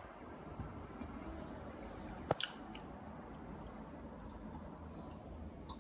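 Low steady background rumble with one sharp click a little over two seconds in, a second one right after it, and a few faint ticks later.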